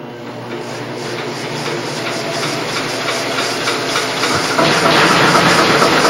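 Homemade Hvid-type semi-diesel flywheel engine being cranked up and run with the help of an electric motor: a steady mechanical running sound that builds in loudness, with a jump about four and a half seconds in.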